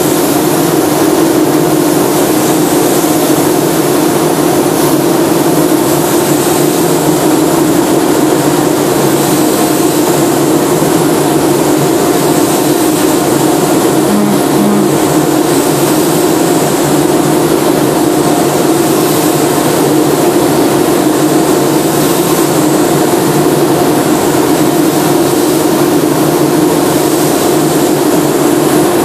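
Steady roar of a paint spray booth's airflow, with the hiss of a gravity-feed spray gun spraying paint and a low steady hum under it.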